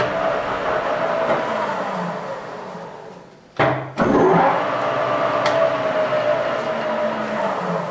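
Goodway GW1660 gap-bed lathe spindle and headstock gearing running at about 550 RPM with a steady gear whine. The whine slows and fades, a sharp clunk comes about three and a half seconds in, and the lathe starts up again and runs until it winds down near the end.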